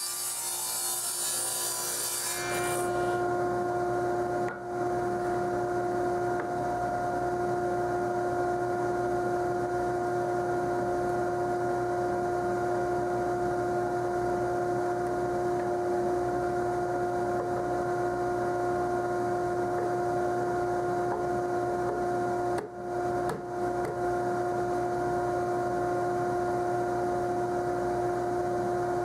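A table saw cutting through plywood for about two and a half seconds, then a steady machine hum at one constant pitch runs on, dropping out briefly twice.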